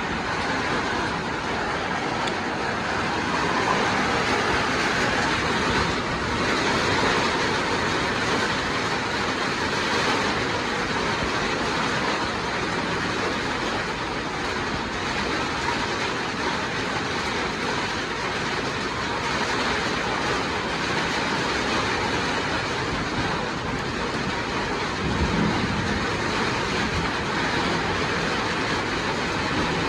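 Steady rushing hiss of rain, even and unbroken, with a brief low rumble about 25 seconds in.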